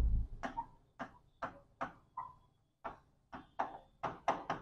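Marker pen writing on a writing board: about a dozen short squeaky strokes as words are written out, with a dull bump right at the start.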